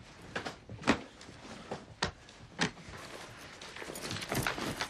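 Handling noises: cloth rustling and about five short knocks as things are moved about at a wooden dresser drawer.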